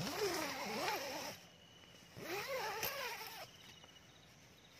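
An animal calling twice, each call lasting a little over a second with a pitch that wavers up and down.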